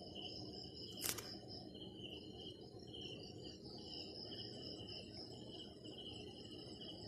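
Faint crickets chirping in a steady, pulsing high trill, with a single sharp click about a second in.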